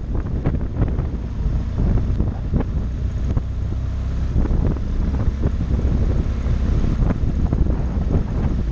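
Wind buffeting the helmet-mounted microphone in irregular gusts, over the steady low running of a BMW R 1200 GS motorcycle's boxer twin engine.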